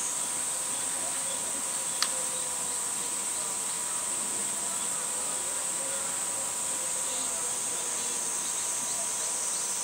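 Cicadas droning in a steady, high-pitched summer chorus, with one sharp click about two seconds in.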